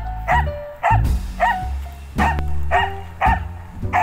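Samoyed dog giving short, high yips over and over, about two a second, with background music underneath.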